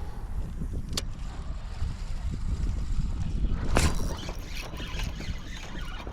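Low rumble of wind on the microphone with small water and kayak noises, a sharp tick about a second in and a louder rush of noise near four seconds.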